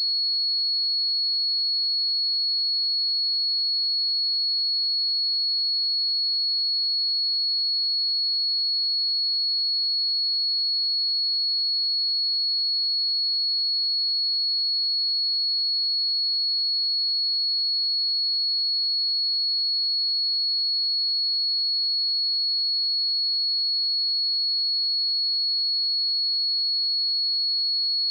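A pure 4352 Hz sine-wave test tone, one steady high-pitched note held at constant level.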